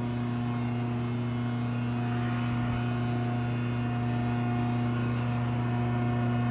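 Betenbender hydraulic press brake idling under power: its 10 hp electric motor and hydraulic pump run with a steady, even hum.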